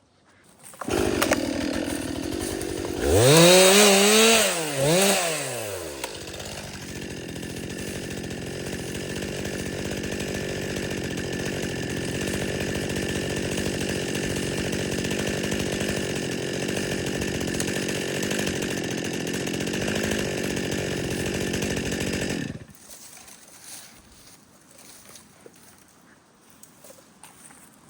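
Two-stroke chainsaw starting up about a second in and revving hard twice. It then runs steadily at a lower speed for about fifteen seconds and cuts off abruptly.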